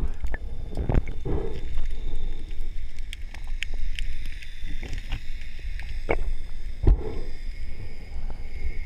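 Underwater sound picked up through a camera housing: a steady low rumble of moving water with scattered clicks and a few louder knocks and thumps.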